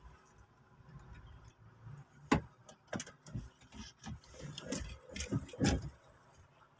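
A few irregular, sharp clicks and knocks inside a car's cabin, the loudest about two seconds in, with more between about three and six seconds.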